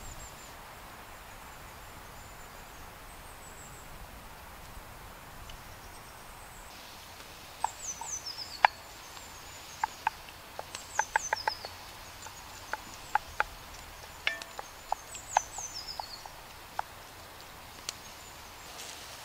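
Minced meat sizzling in a cast-iron Dutch oven over a campfire, a steady hiss; from about a third of the way in, sharp pops and clicks come as it is stirred with a wooden spoon. A bird gives a short descending call three times in the background.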